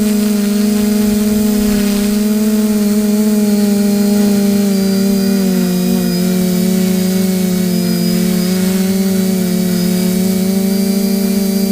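Steady mechanical hum of several small motors running together, their close tones drifting slightly apart and back in pitch about halfway through.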